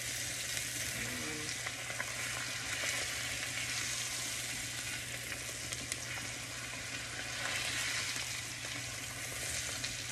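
Prime rib steak sizzling steadily as it sears brown in foaming butter in a frying pan, with a few light clicks as a fork turns and lifts it.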